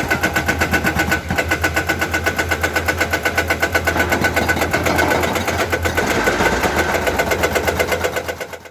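Hydraulic breaker on a Komatsu excavator hammering at a steady rate of about eight blows a second, over the running diesel engine. It cuts off abruptly near the end.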